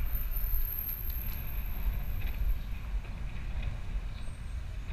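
Wind buffeting the microphone of a camera riding along on a moving mountain bike, a steady gusty rumble with a few faint ticks and rattles.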